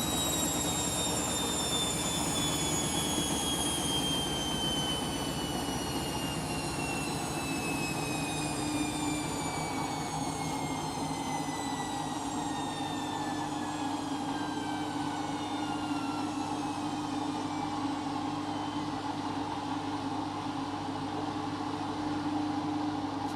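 Candy washing machine winding down after its final spin: the motor's whine falls slowly and evenly in pitch as the drum coasts to a stop, over a steady low hum.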